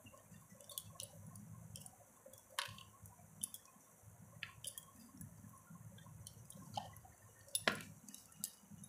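Faint, irregular clicks and soft scrapes of a raw potato being pushed across a handheld slicer blade, with the slices dropping onto a steel plate. One sharper click comes near the end.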